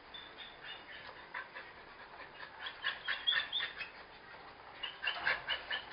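A dog whining in short, high-pitched squeaks, coming in three bunches, the loudest in the middle and near the end.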